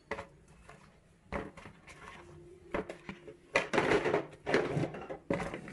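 Vegetables being picked up off a kitchen counter and dropped into a plastic basket: scattered light knocks and rustles, getting busier past the halfway point.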